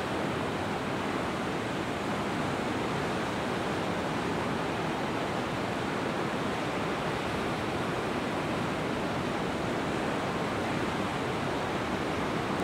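Ocean surf breaking on a rocky shore below, heard as a steady, even wash of noise.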